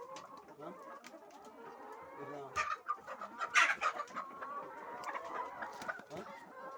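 A flock of laying hens clucking, many short calls overlapping, with a couple of louder, sharper sounds around the middle.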